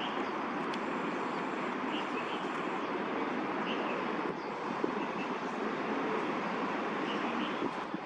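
Steady hum of city traffic, an even wash of sound with no breaks, with a few faint, short high chirps now and then.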